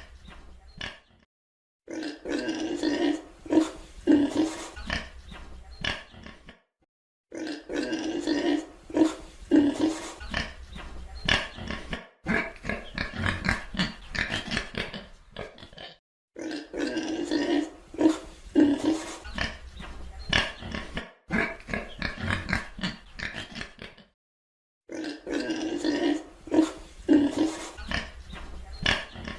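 Pig grunting, in rapid runs of short grunts lasting a few seconds each, broken by brief silent gaps.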